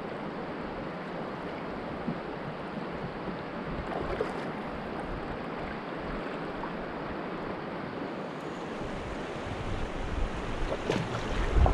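Swift river water rushing steadily around a paddled kayak. It grows louder near the end, with low rumbling buffets as the kayak nears rougher water.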